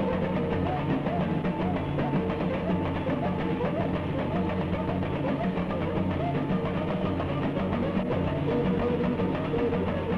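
Samba drum section playing, snare drums among them, in a steady, dense rhythm.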